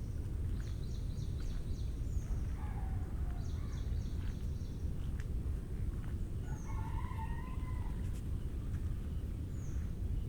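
Birds calling over a steady low background rumble: two quick runs of short high chirps in the first few seconds, then a longer, lower call lasting over a second about two-thirds of the way in.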